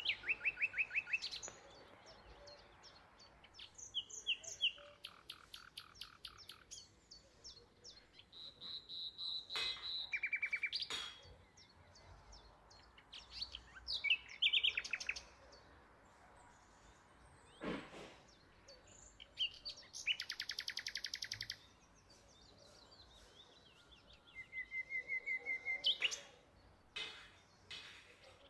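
A songbird singing: phrase after phrase of fast trills of rapidly repeated high notes, each at a different pitch, with a held whistled note near the end. A few short sharp clicks and knocks fall between the phrases.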